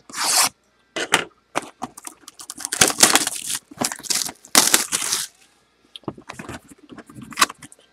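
Packaging of a trading-card hobby box being torn open and crinkled, in irregular bursts of tearing and crackling.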